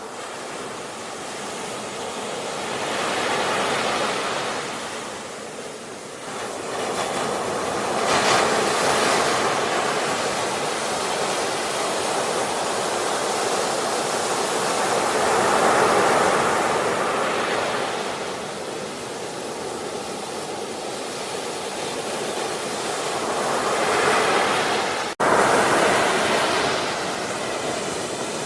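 Ocean waves breaking and washing ashore in slow swells that rise and fall every several seconds, with a brief sudden cut in the sound about 25 seconds in.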